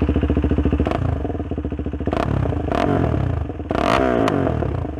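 KTM Duke 390's single-cylinder engine idling through a BlackWidow aftermarket exhaust, a steady fast pulse. About a second in, several sharp knocks and scraping sounds close to the microphone cover the idle, and the even idle returns near the end.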